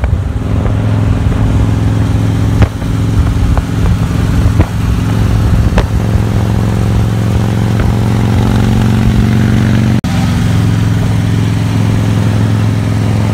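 Vehicle engine running steadily at highway speed, a loud, even low drone with a few sharp clicks, cutting out for an instant about ten seconds in.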